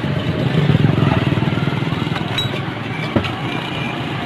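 A vehicle engine running close by, a throbbing rumble amid street traffic noise, loudest about a second in. A single light click sounds about three seconds in.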